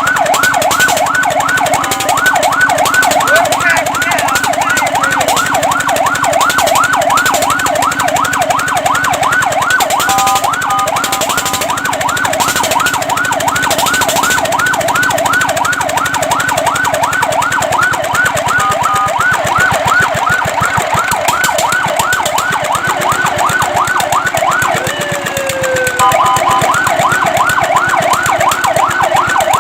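Fire truck siren sounding in a fast yelp, its wail sweeping up and down several times a second. It is broken three times by a short steady tone and once, near the end, by a brief dip and slow glide.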